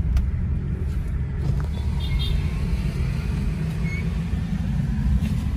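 Car's engine and road noise heard from inside the cabin: a steady low rumble while driving.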